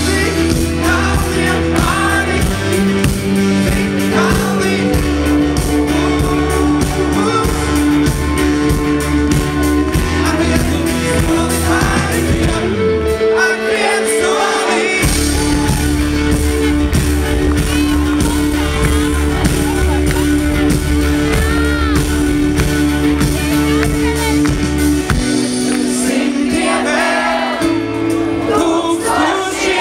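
A band playing a song live: singing over keyboards and acoustic guitar, with held low bass notes that drop out briefly twice.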